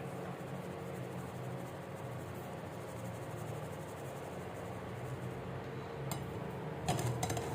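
Steady low background hum and hiss, with a few light taps and rattles near the end from a strainer being worked over a bowl while dry flour is sifted.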